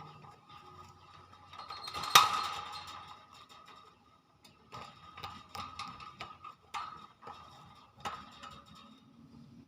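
Irregular clicks and knocks, one much louder than the rest about two seconds in, over a faint steady tone.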